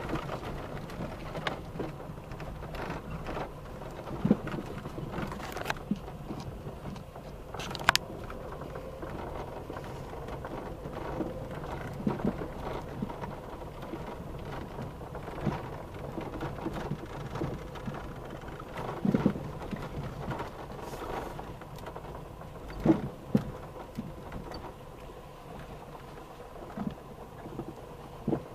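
Car cabin noise while driving slowly over a rough dirt track: a steady low rumble from the engine and tyres, with occasional sharp knocks and rattles as the car jolts over ruts.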